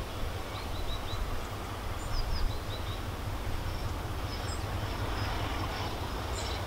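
Distant Class 33 diesel locomotive approaching, its Sulzer eight-cylinder engine a steady low rumble, with small birds chirping over it.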